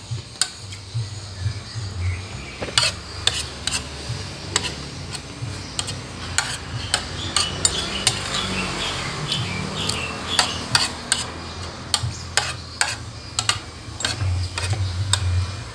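Metal spoon clinking and scraping against a ceramic plate while eating, in irregular sharp clinks, over a low background hum.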